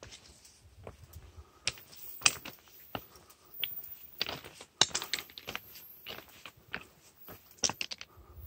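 Footsteps crunching on railway track ballast: sharp gravel crunches and small stone clicks, roughly one step every two-thirds of a second.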